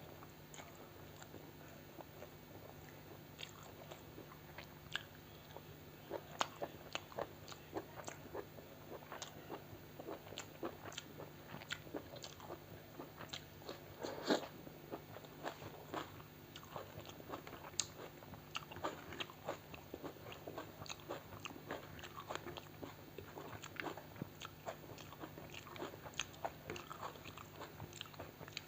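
Close-miked eating: a person chewing and biting food, with frequent irregular wet clicks and crunches, the loudest about fourteen seconds in.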